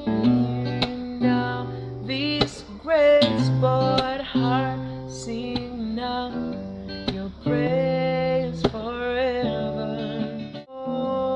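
A man singing a slow worship song with vibrato while strumming chords on an acoustic guitar, pausing briefly near the end.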